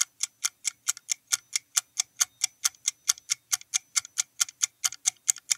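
Quiz countdown-timer sound effect: even clock-like ticking, about four to five ticks a second, while the answer time runs down.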